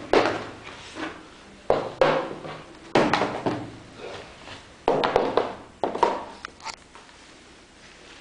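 A cardboard shoebox being opened and leather boots lifted out and handled: a series of loud rustles, scrapes and dull knocks, about one a second.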